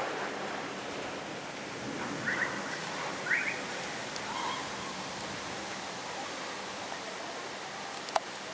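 Heavy thunderstorm rain pouring down, a steady even hiss, with two short higher sounds a little over two and three seconds in and a sharp click near the end.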